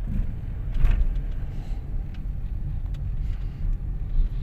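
Toyota Vios 1NR four-cylinder engine running, a steady low rumble with no misfire, after its intermittently cutting-out ignition coil was dealt with. A brief knock sounds about a second in.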